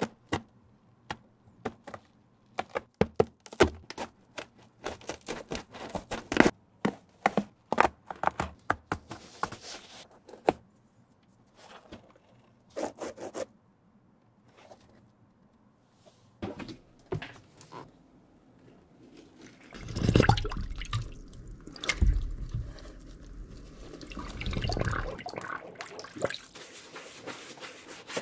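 Small scissors snipping and picking through a sneaker's sole stitching, a run of sharp clicks. Later comes a few seconds of water splashing and running into a plastic tub, and then a bristle brush scrubbing the soapy sole.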